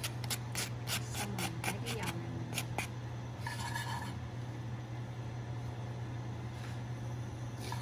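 Wooden chopsticks clicking and scraping against a nonstick frying pan as minced garlic is tipped into the oil and spread around. The clicks come thick and fast for the first few seconds, then thin out, over a steady low hum.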